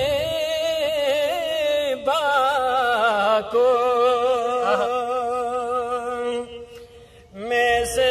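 A man's voice singing a naat, an Urdu devotional poem, into a microphone, drawing out long wavering melismatic notes. The voice stops for about a second, about six and a half seconds in, and starts again near the end.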